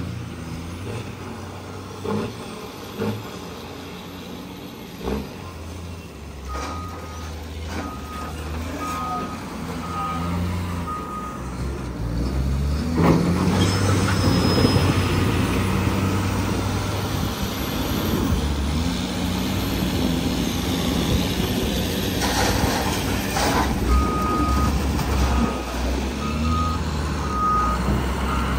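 Heavy earthmoving machinery working: diesel engines run, getting louder and heavier about halfway through, with a few knocks in the first seconds. A reversing alarm beeps steadily for about five seconds near the quarter mark and again near the end.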